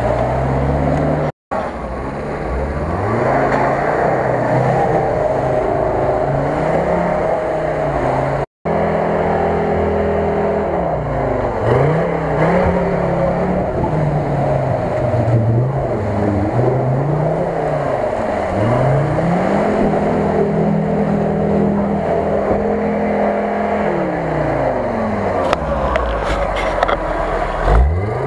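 UAZ-469 off-roader's engine revving again and again as it pushes through deep mud and water, its pitch climbing and falling with each burst of throttle. The sound breaks off briefly twice, at cuts between clips.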